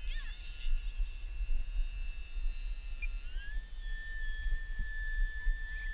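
Electric RC plane (ParkZone Stryker flying wing on a 4S LiPo battery) flying overhead, its brushless motor and propeller giving a steady high whine that steps up in pitch a little past halfway as the throttle opens. Wind rumbles on the microphone throughout.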